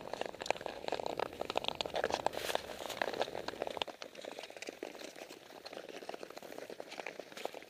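Ice skate blades scraping over natural lake ice: a dense, gritty crackle of many small clicks that turns quieter and sparser about four seconds in.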